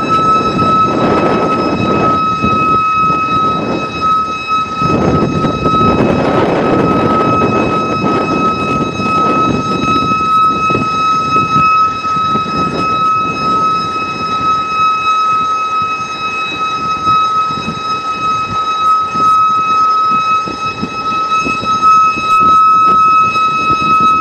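A vehicle horn sounding continuously on one steady high note, stuck on, over a rushing noise that swells and fades.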